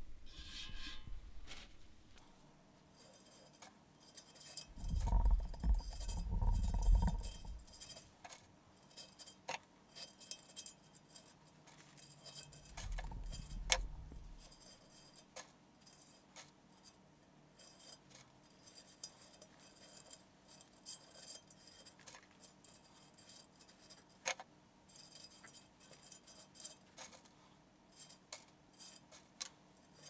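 Pine needles rustling and scratching as they are pushed into wire wrapped around a glass vase, with many small clicks and light clinks against the glass. Dull handling thumps come twice, a few seconds in and again around the middle.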